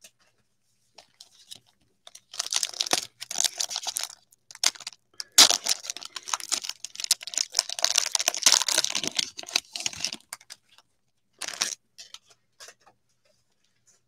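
Plastic cellophane wrapper of a cello pack of NBA Hoops trading cards crinkling and tearing as it is opened. The sound comes in bursts: one about two seconds in, a long stretch through the middle, and a short burst near the end.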